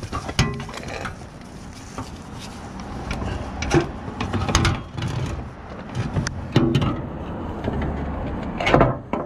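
Irregular clicks and knocks of hand tools and underbody parts being handled while the skid plate is taken off a Toyota 4Runner.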